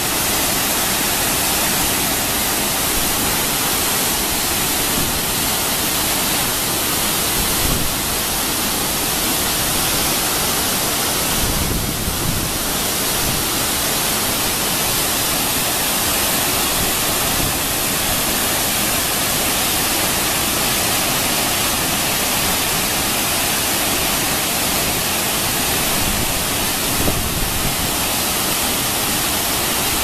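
Waterfall pouring down a rock face close by: a loud, steady rush of falling water.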